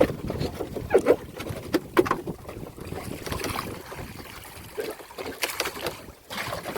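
Water splashing and slapping around a small open boat at sea, with several sharp knocks in the first two seconds and wind on the microphone; no outboard engine running.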